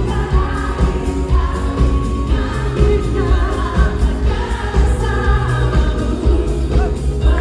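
Pop song with a voice singing over a heavy bass line.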